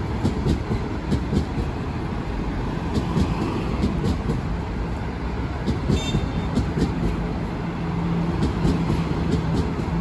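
A train running past: a heavy rumble with irregular clacks from the wheels and a steady low hum that grows stronger near the end, with a brief high squeal about six seconds in.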